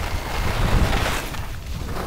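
Wind buffeting a helmet-mounted camera's microphone while riding downhill, with a swelling hiss of edges scraping across packed snow about halfway through.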